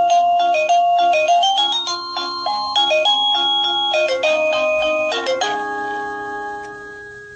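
Sadotech Model C wireless doorbell chime playing an electronic melody of quick, clean notes, ending about five seconds in on a held chord that slowly fades away.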